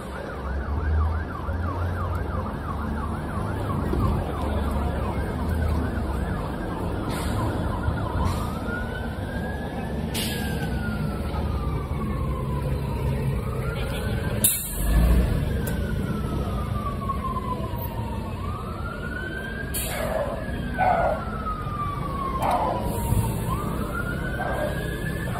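Emergency vehicle siren: a fast yelp for the first several seconds, then a slow wail rising and falling about every five seconds, over low engine rumble. A sharp knock sounds about halfway through.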